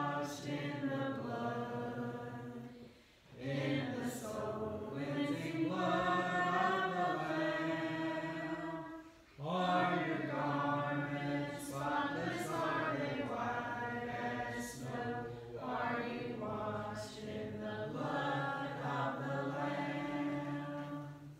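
A small congregation singing a slow hymn together in long held phrases, with brief breaks about three and nine seconds in.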